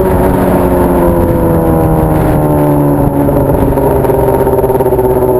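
Honda Hornet motorcycle's inline-four engine running loud through a 3-inch aftermarket exhaust while ridden, its note easing slowly down as the revs fall.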